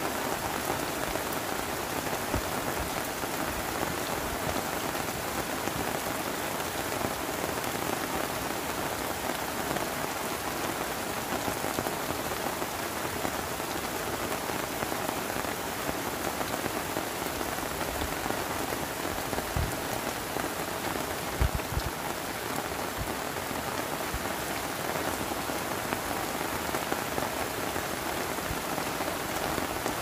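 Heavy rain shower falling steadily, a dense even hiss of drops, with a few low thumps about twenty seconds in.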